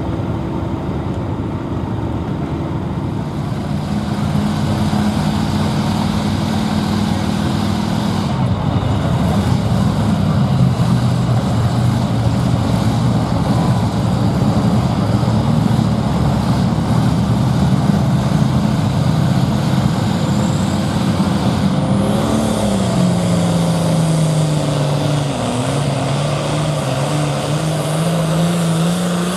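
Turbocharged diesel engines of 466-cubic-inch hot farm pulling tractors running at high revs, with a tractor under heavy load pulling the sled. The engine pitch sags about three-quarters through, then climbs again near the end.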